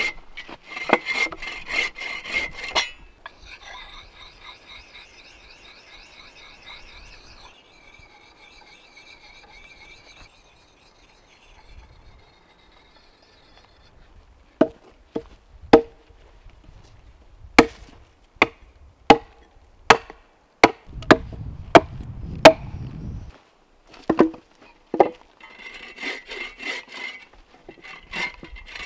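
Hand woodworking on timber. Scraping, rasping strokes on wood are heard at the start and again near the end, and in the middle comes a run of about fifteen sharp knocks of a tool striking wood, a few a second.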